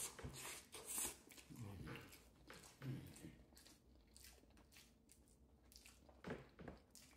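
Faint close-up eating sounds: a spoonful of quinoa taken into the mouth, then chewing with soft mouth clicks and smacks.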